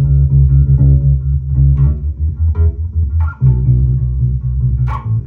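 Electric bass played through a Gallien-Krueger Legacy 210 bass combo amp with its overdrive channel being turned up: rapid repeated picked low notes, shifting to a new note about three and a half seconds in.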